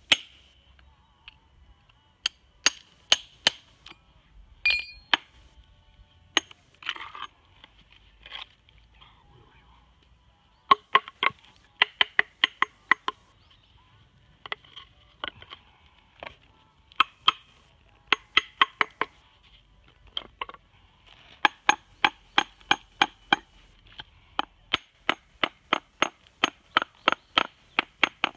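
Hammer striking a rough natural whetstone, in runs of sharp ringing taps several a second with short pauses between, chipping and splitting the stone along its layers. The ring of each blow is a tap test, used to find the weakly bonded seams where the stone is split.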